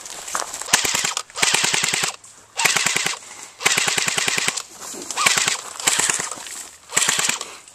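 An airsoft rifle firing full-auto in about six short bursts, each a rapid rattle of shots lasting half a second to a second, with brief pauses between.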